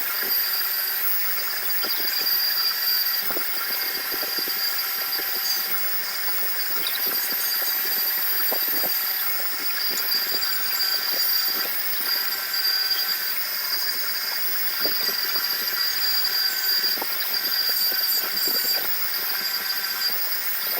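Electric power tool running steadily under load with a high-pitched whine, such as a sander or grinder working on a hammer.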